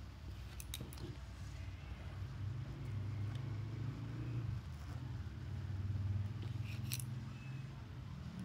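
Tip of a metallic paint marker scratching faintly on paper as strokes are drawn, with a few small ticks, over a steady low background rumble.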